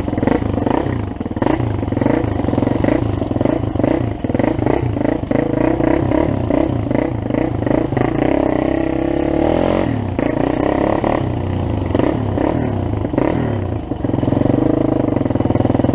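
ATV engine running and revving over a rough, muddy dirt trail, with knocks and rattles from the bumps. About eight seconds in, the engine note drops away and then climbs again.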